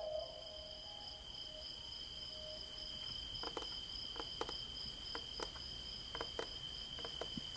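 Crickets trilling steadily on two high pitches, with scattered faint clicks from about three seconds in.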